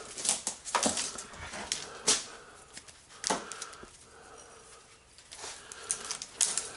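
Spiral steel armour of BX cable and loose copper wires rattling and scraping as they are handled, with a few sharper metallic clinks about one, two and three seconds in.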